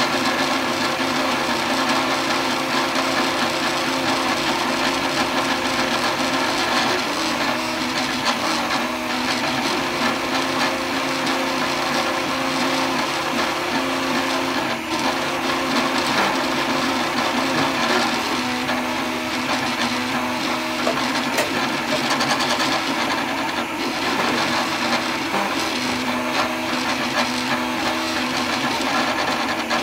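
3D printer running a print: its stepper motors whine in short tones that keep changing pitch as the print head and bed move, over the steady whirr of its cooling fans.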